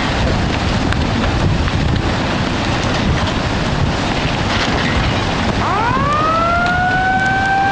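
Constant rushing noise, with a tsunami warning siren starting about five and a half seconds in, rising quickly in pitch and then holding one steady tone.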